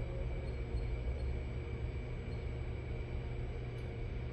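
Yaskawa MH50-20 welding robot and its controller running during a test cycle as the arm moves, giving a steady low hum with a faint steady high tone.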